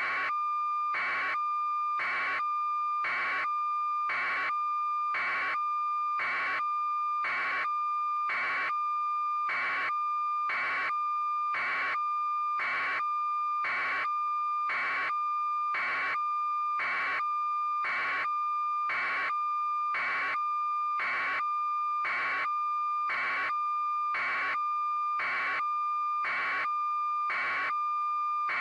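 A steady electronic tone with an even pulse about once a second over it, unchanging and machine-regular throughout.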